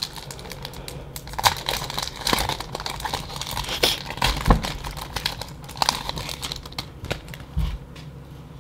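Foil Yu-Gi-Oh! booster pack wrapper crinkling and tearing as it is worked open by hand: a dense run of irregular crackles that dies away near the end.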